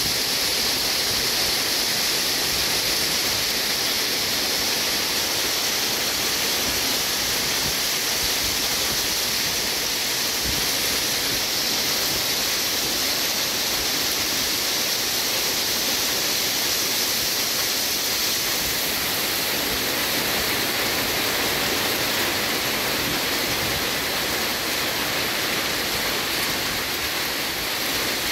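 Heavy hail and rain pelting flooded fields and standing water, a dense, steady hiss with no single impacts standing out. The stones are a little bigger than quarters.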